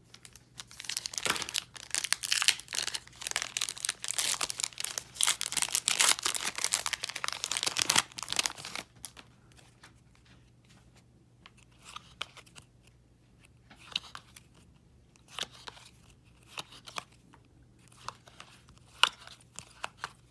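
Plastic wrapper of a hockey card booster pack being torn open and crinkled, a dense crackling for about eight seconds. Then only scattered soft rustles and clicks as the cards are handled.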